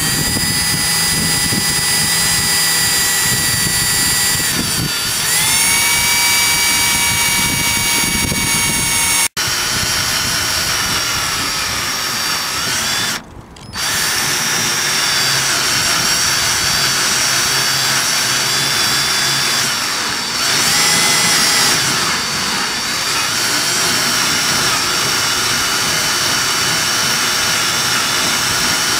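Power drill boring into the metal top of a microwave's casing, running without a break. Its motor whine bends in pitch a few times as the load changes, and it dips briefly about a third of the way in.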